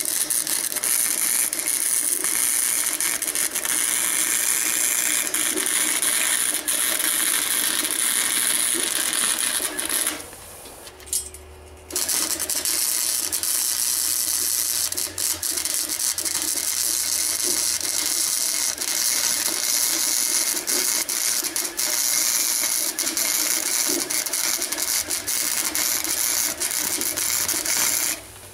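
Electric arc welding on steel angle iron: the arc crackles and sputters steadily as a bead is laid. It stops about ten seconds in, strikes again about two seconds later, and keeps crackling until just before the end.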